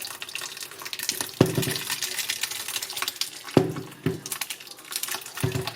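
Grape juice being strained from mashed grapes: liquid trickling and splashing, with four sharp knocks that ring briefly.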